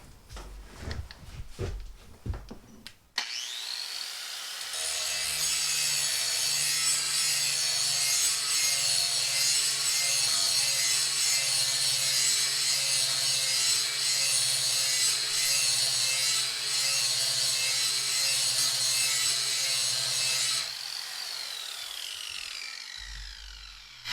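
A few knocks of handling, then an electric grinder spinning up about three seconds in and grinding steel off a lawn mower blade for about sixteen seconds, winding down near the end. Metal is being taken off the heavy end of the blade to balance it.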